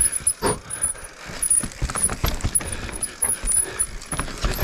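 Mountain bike rattling and clattering over roots and rocks on a steep dirt descent, with irregular sharp knocks and clicks from the chain, frame and suspension.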